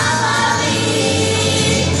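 A children's vocal group singing in unison into microphones over amplified backing music with a steady bass line.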